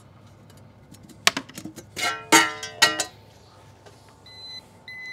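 Metal clinks and ringing rattles as the back cover and screws of a pool pump motor are taken off, a few sharp clicks and then a cluster of ringing clanks. Two short high beeps near the end.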